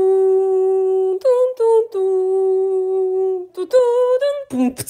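A single voice humming a slow wordless tune as a short transition jingle: a long held low note, two short higher notes, a second long held low note, then a higher note and a run of quick short notes near the end.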